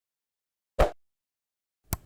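Short editing sound effects, not the train horn: a single quick pop about a second in, then two sharp clicks near the end.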